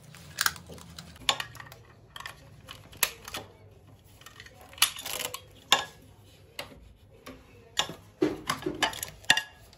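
Plastic and metal clicks and clacks as a car-seat-type buckle and a metal latch on the backrest of a patient transfer chair are fastened and released: about a dozen sharp clicks at irregular intervals.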